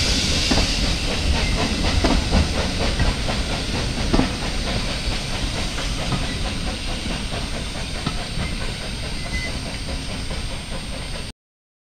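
Steam train running past and moving away: steam hiss and rolling noise with a few wheel clicks over rail joints, slowly fading, then cutting off suddenly near the end.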